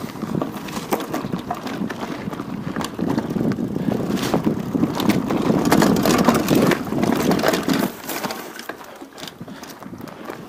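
Irregular crunching, knocking and rattling over a rough rumble: the noise of moving along a rough track, picked up by a camera worn on the chest. It grows louder a little past the middle and eases off near the end.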